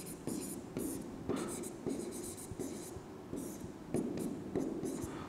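Handwriting: a faint run of short, scratchy writing strokes coming about every half second, as the chemical equation is written out.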